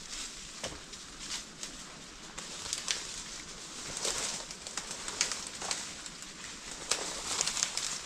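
Footsteps pushing through swamp brush: leaves and twigs rustling and crackling in irregular steps.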